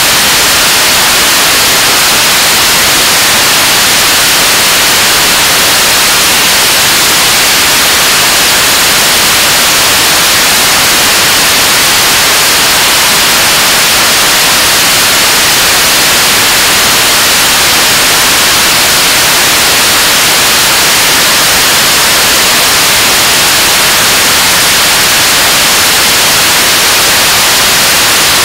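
Liquid-propellant 7-tonne-class rocket engine of the Korean launch vehicle (KARI's unit 2) firing at steady thrust in a long-duration hot-fire test: a loud, unbroken rushing hiss, strongest in the highs, that stays the same throughout.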